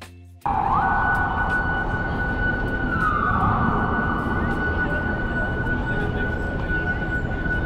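Emergency vehicle siren sweeping up to a high pitch and holding there, over loud, steady city street traffic noise. It cuts in abruptly about half a second in.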